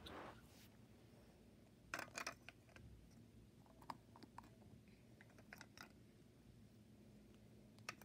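Near silence with a few faint, light clicks and taps of small plastic toys being handled and set down: a pair about two seconds in, a short cluster around four seconds, another around five and a half seconds, and one more at the very end.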